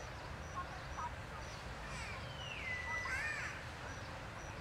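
A baby macaque's drawn-out, high-pitched cry about two seconds in, sliding down in pitch and then wavering before it stops. Faint high chirps repeat evenly in the background.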